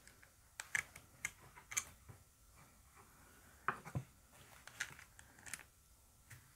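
Faint, irregular taps and clicks with fabric rustle as fabric is pressed and settled into a cloth-wrapped wooden embroidery hoop.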